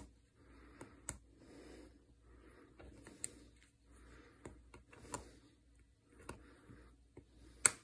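Faint, irregular scratching of a welding torch-tip cleaner twisted round the main jet of a Briggs & Stratton plastic carburetor, filing the dirt off the metal, with small clicks and one sharper click near the end.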